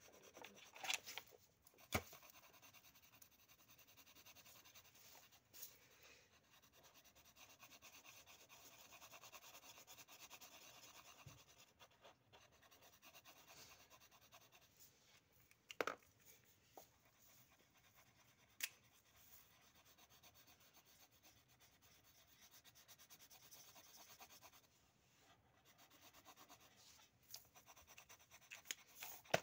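Faint scratching and rubbing of felt-tip markers on paper as drawings are coloured in, with a few sharp clicks.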